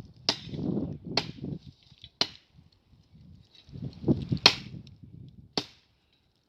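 Five sharp chopping strikes of a blade into a tree trunk, about a second apart with a pause in the middle, each ringing briefly.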